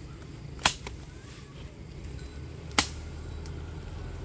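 Two sharp knocks about two seconds apart, over a low steady hum.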